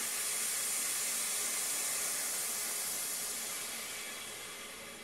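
Pressurised air hissing out as the pressure is vented from an OK Products FR2 shock vacuum and oil-filling machine. The hiss is strongest in the first couple of seconds and fades gradually as the pressure runs down to nothing.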